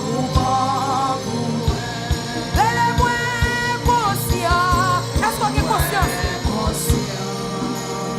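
Live gospel worship music: a voice singing long, wavering notes with vibrato over a band, with a steady kick-drum beat underneath.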